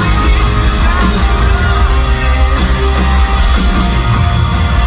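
A live rock band plays loudly, with electric guitars and a singer's voice through a handheld microphone, steady and without a break.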